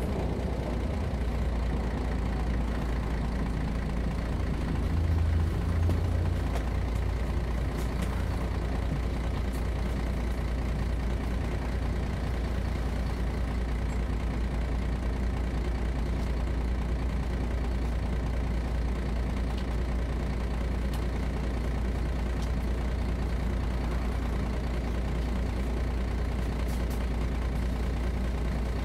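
Mercedes-Benz O 405 G articulated bus's six-cylinder diesel engine idling steadily, with a brief swell about five seconds in.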